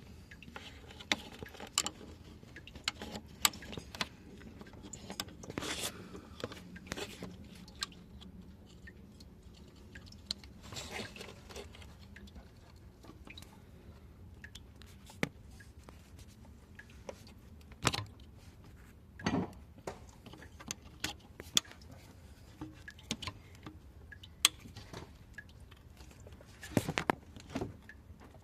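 Irregular clicks, taps and light clatter of hand tools and small parts being handled during engine repair work, over a faint steady low hum.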